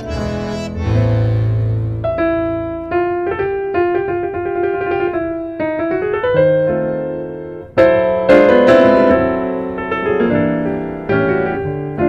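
Background piano music: single notes and chords that strike and fade, growing louder about eight seconds in.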